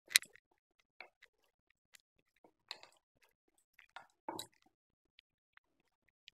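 Hands kneading soft whole-wheat atta dough, bound with buttermilk and worked with ghee, in a steel bowl: a few irregular, faint, sticky squishes and pats, with a sharper click right at the start.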